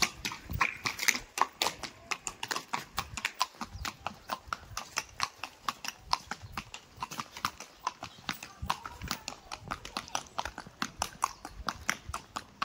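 Mare's hooves clip-clopping steadily, a regular run of sharp hoof strikes about four a second.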